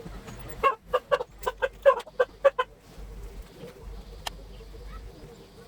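A quick run of about nine short clucking calls from a fowl, such as a chicken, then one sharp click a little later.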